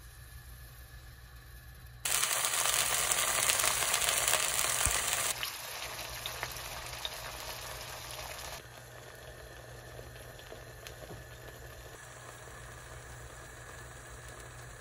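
Food sizzling and crackling in a hot frying pan, in several short cuts. The sizzle is loudest a couple of seconds in, then drops back in steps.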